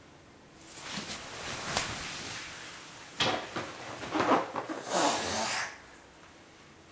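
Breathy blowing and rustling as a man breathes into a white object held at his mouth, in two stretches of a couple of seconds each.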